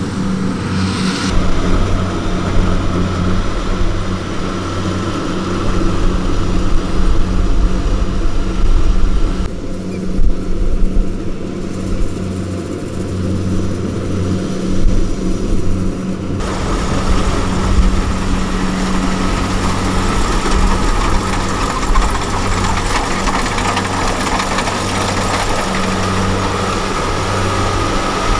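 Farm machine's diesel engine running steadily with a low, even hum. The higher noise over it changes abruptly a few times, as between shots.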